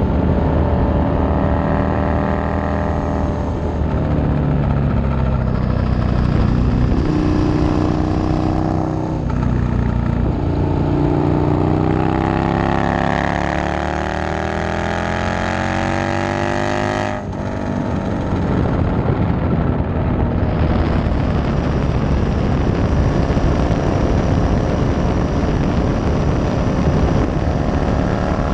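Motorcycle engine running at road speed over heavy wind rush on the microphone. Its pitch rises and falls with the throttle, climbing steadily in the middle and then dropping sharply at a gear change about 17 seconds in.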